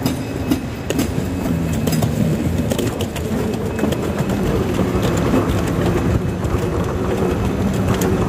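Airport moving walkway running underfoot: a steady low hum with irregular light clicks and clacks from the moving belt.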